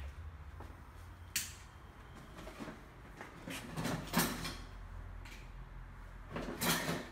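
Tool work on a seized tailgate strut bolt whose head is stripped: a sharp click a little over a second in, then a series of short scraping, rasping strokes of metal on metal.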